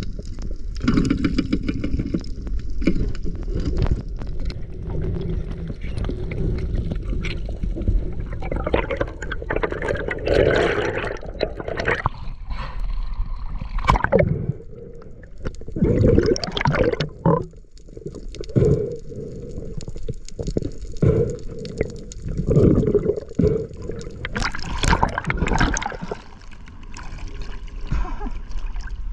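Water gurgling and rushing over an underwater action camera, coming in irregular surges, as a spearfisher swims and rises through the water.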